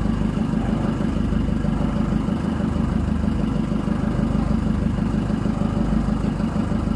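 Outrigger fishing boat's engine running steadily at constant speed, with a fast even pulsing.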